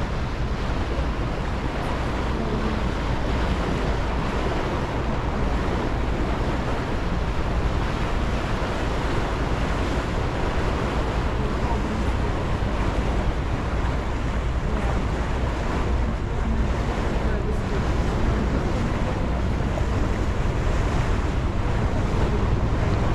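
Steady rush of wind on the microphone and water along the hull of a moving passenger ferry, over a low, even rumble from the boat.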